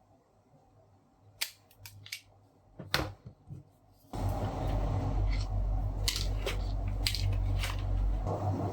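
A few sharp clicks and knocks of small objects being handled. About four seconds in, a steady hum with a low drone starts suddenly, with a few more clicks over it.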